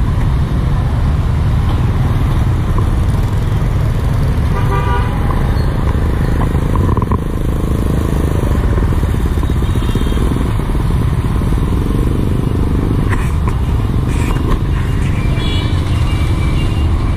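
Road vehicle noise: a steady low rumble, with a horn tooting briefly about five seconds in.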